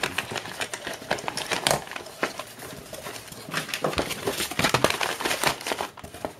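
Newspaper packing rustling and crinkling in a cardboard box, with many small clicks and knocks as aircraft circuit breakers are handled and moved against each other.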